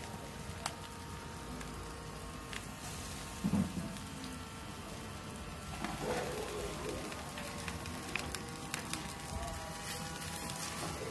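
Skewered meat sizzling and crackling over a gas grill, fat spitting in a steady patter of small pops. One dull thump about three and a half seconds in.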